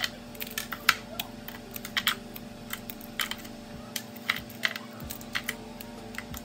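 Hard, brittle nut praline (set caramelised sugar with roasted nuts) being snapped and broken apart by hand: a run of sharp, irregular cracks and crunches, the loudest right at the start and about a second in.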